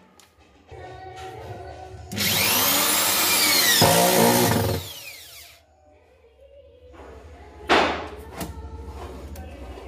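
Corded electric drill-driver running for about two and a half seconds, its motor whine rising and falling as it drives a screw into the basket's metal channel slide. Two sharp clicks come later.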